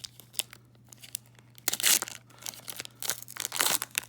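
Foil trading-card pack wrapper being torn open and crinkled: scattered crackles, with louder tearing rushes about two seconds in and again near the end.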